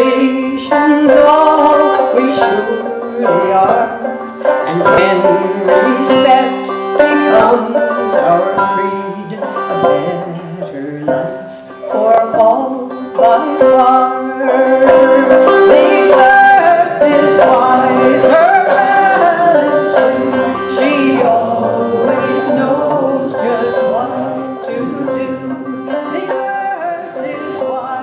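Live folk music played on a small plucked string instrument, picked and strummed continuously.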